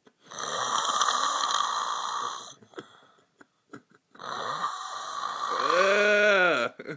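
A man snoring loudly: two long, rasping snores a little over a second apart. The second ends in a pitched sound that rises and then falls.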